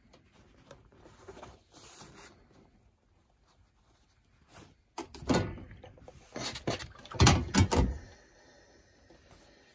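Hands handling and folding a strip of cotton fabric on an ironing board: soft fabric rustling, then about halfway through a run of louder rubbing and bumping sounds lasting a few seconds.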